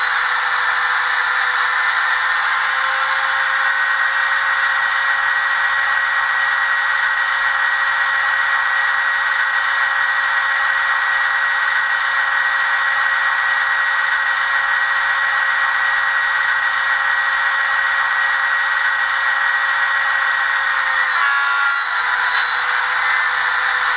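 Diesel locomotive engine sound from an ESU LokSound DCC sound decoder, played through the HO-scale model's small speaker while the model stands still. It is a steady engine drone with a hiss and a whine. The pitch rises slightly a few seconds in, breaks briefly near the end, then starts to fall.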